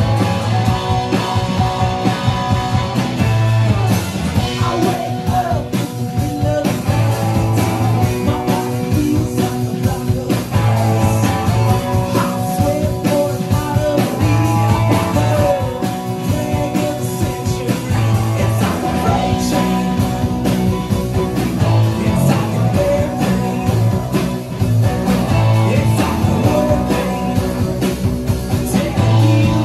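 Live band playing a rock song on acoustic and electric guitars, upright bass and drum kit, with a steady beat and a man singing.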